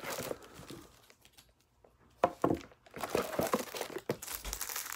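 Cardboard box and plastic wrapping being handled while a knife is unwrapped: rustling and crinkling, a quieter pause, then two sharp crackles about two seconds in, followed by more crinkling of the plastic.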